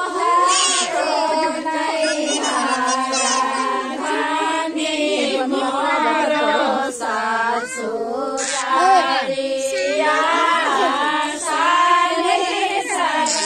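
A group of women and girls singing a traditional Maithili Sama Chakeva folk song together, unaccompanied, in a steady chant-like melody.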